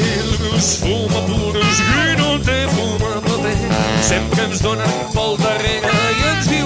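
Background music: an upbeat band song with a sung vocal.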